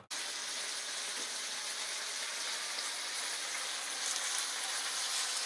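Shrimp, cuttlefish and vegetables sizzling in sauce on a large steel griddle, a steady hiss that starts suddenly just after the start.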